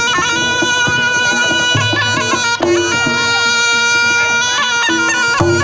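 Reog Ponorogo gamelan music: a slompret, a double-reed shawm, plays long held nasal notes over a quick, even pulse of lower percussion.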